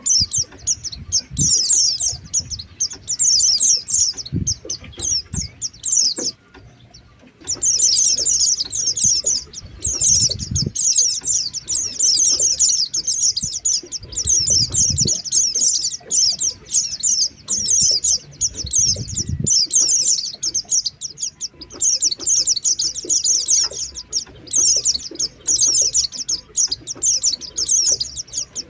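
White-eyes (pleci) calling in a dense, rapid run of high chirps, the lure call used to draw other white-eyes in. It breaks off for about a second near a quarter of the way in, and a few soft low thuds sound under it.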